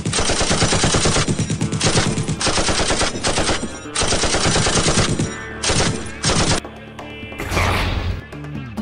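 Rapid machine-gun fire sound effect in long continuous bursts, with a brief break about four seconds in and shorter bursts that stop about six and a half seconds in.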